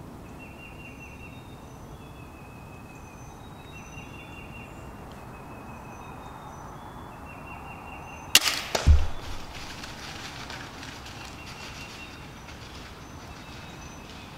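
Crossbow shot at a whitetail doe: a sharp crack of the release a little past halfway, followed about half a second later by a deeper thud. Rustling in dry leaves follows for a few seconds as the deer runs off.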